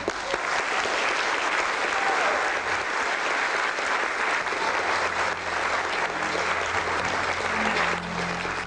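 Theatre audience applauding, the clapping starting abruptly as a dance number ends and thinning near the end as music begins again.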